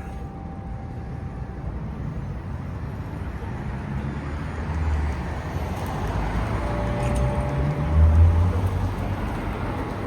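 Road traffic passing: a low vehicle engine and tyre rumble swells and fades, loudest about eight seconds in. The last church-bell tone rings away in the first couple of seconds.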